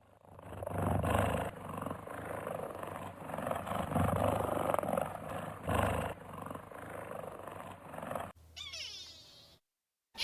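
An animal growling in rough, noisy swells that rise and fall several times, followed near the end by a short gliding meow-like call.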